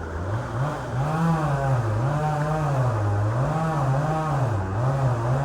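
An engine rises from a steady low idle near the start, then revs up and down in a repeating cycle about once a second.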